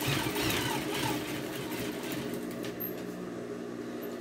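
Electric sewing machine running steadily, stitching a side seam, with a burst of brighter noise in the first second or so.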